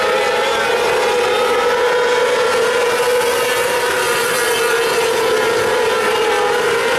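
A field of 600cc micro sprint cars racing on a dirt oval, their high-revving motorcycle engines blending into one steady, loud drone whose pitch wavers slightly.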